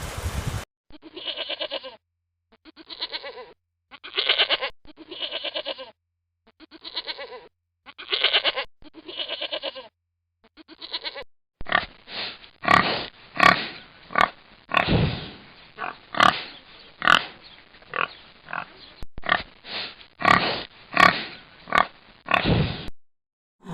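Pig sound effect: about eight separate grunting calls spaced roughly a second apart, then a faster run of short grunts over the second half.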